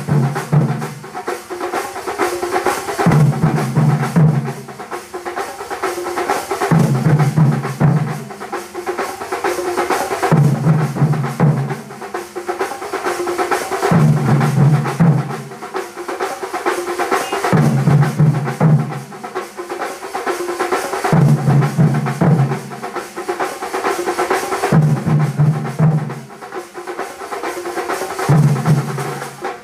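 Thambolam drum band: many cylindrical drums beaten with sticks in a fast, dense rhythm. A deep, booming phrase comes round about every three and a half seconds.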